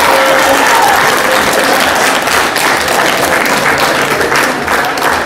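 A room full of people applauding with dense, steady clapping.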